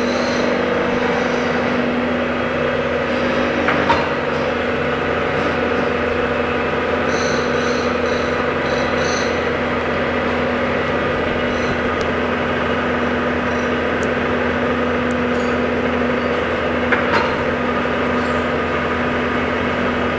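Hob sharpening machine running steadily, its motor and drive humming while the dish grinding wheel grinds the flutes of a gear hob. Two brief sharp ticks stand out, about four seconds in and again near the end.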